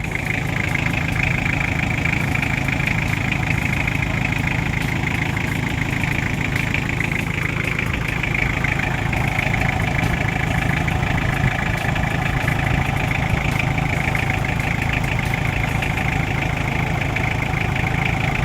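Toyota 2C four-cylinder diesel engine idling steadily and evenly, without misfiring: the idle is good again after the repair of its hard starting and low power.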